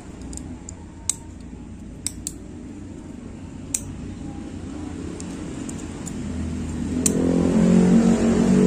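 A few sharp light clicks of metal tweezers touching the lamp's circuit board, over a low steady rumble. Then a motor vehicle's engine grows steadily louder over the last few seconds and becomes the loudest sound.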